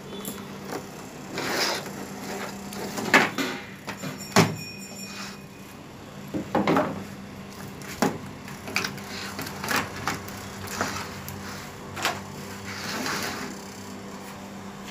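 A cardboard box opened and a new CRT TV circuit board unpacked and set down on a workbench: irregular rustles, scrapes and knocks, the loudest about three and four and a half seconds in.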